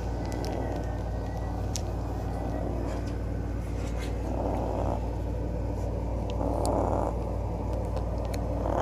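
Small dog snoring loudly, a rasping snore on its breaths about every two seconds, the strongest ones in the second half.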